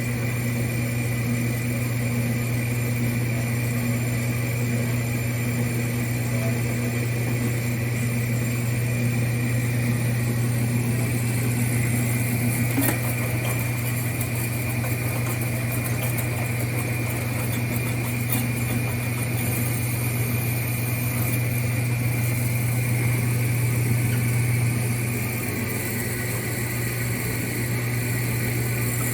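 Jet HBS-1018-W horizontal bandsaw running: its 2 hp motor and blade drive give a steady hum with a thin high whine. A single click comes about thirteen seconds in, and the hum eases slightly about twenty-five seconds in.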